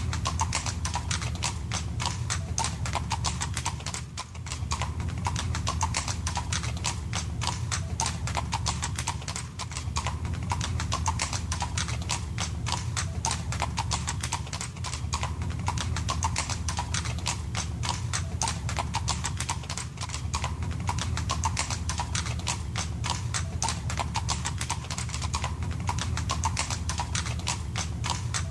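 Horse hooves clip-clopping at a steady walk, continuous throughout, over a low steady rumble.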